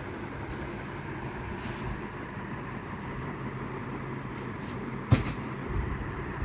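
Steady background hum and hiss with no clear source, broken once by a single sharp knock about five seconds in.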